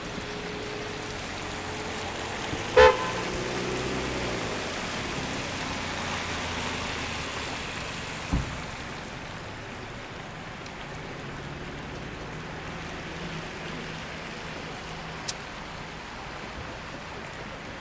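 Rain falling on a city street with car traffic running by as a steady wash. A car horn gives one short, loud honk about three seconds in, and a dull thump comes around eight seconds in.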